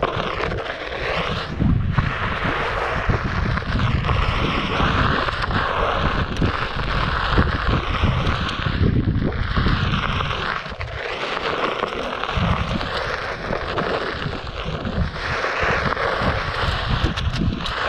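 Wind buffeting the microphone during a Onewheel Pint ride over a dirt trail, with gusty rumble throughout. Over it, the board's electric hub motor whines, rising and falling in pitch.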